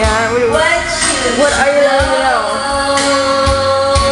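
A voice singing over a backing track with a steady beat, karaoke-style, bending through a short phrase and then holding one long note through the second half.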